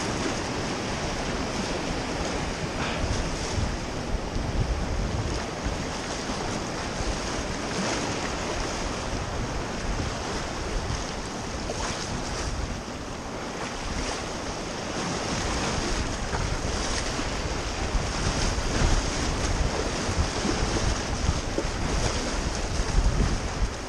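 Sea surf washing and breaking over jetty rocks, with wind buffeting the microphone.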